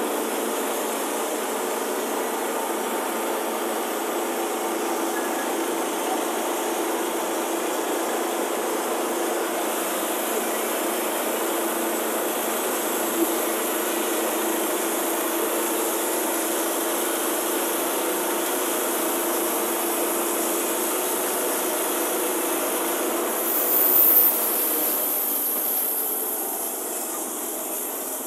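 Wood-Mizer LT10 portable bandsaw mill running steadily as its band blade saws the first cut down a hemlock log. There is a brief, louder high-pitched burst near the end, after which the sound eases off a little.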